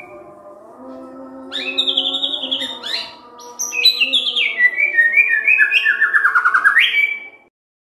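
White-rumped shama (murai batu) singing: loud, varied whistled phrases with rapid trills stepping down in pitch, ending on a rising held note, then cutting off suddenly.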